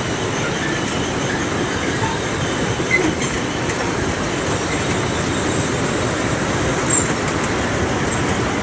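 Children's car carousel spinning: the steady running noise of its turning platform and drive, with a faint click about three seconds in and another near seven.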